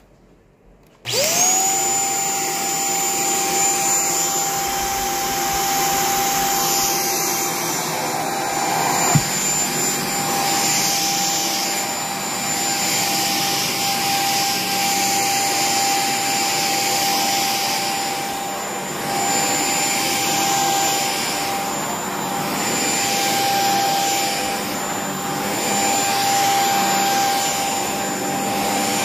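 Shark cordless stick vacuum switching on about a second in and spinning up quickly to a steady high whine, then running with its powered brush head on a rug. The level swells and dips every few seconds, and there is a single sharp click about nine seconds in.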